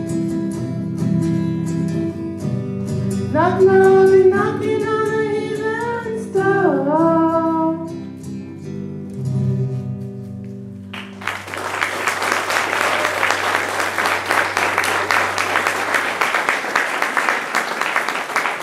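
Two acoustic guitars play under a woman's wordless singing, her notes sliding up and down as the song ends. About eleven seconds in the music stops and the audience breaks into applause.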